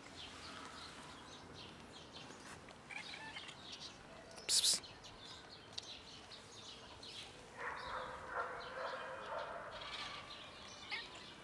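Faint bird chirps outdoors, with one short, sharp rustle about four and a half seconds in and a low murmur in the last few seconds.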